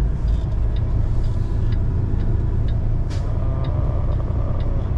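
Semi-truck engine running low and steady inside the cab as the tractor-trailer rolls slowly, with the turn signal clicking about twice a second. A brief hiss about three seconds in.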